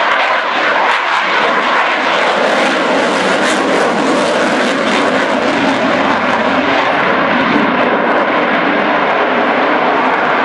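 Eurofighter Typhoon's two Eurojet EJ200 jet engines in afterburner: a loud, steady jet roar.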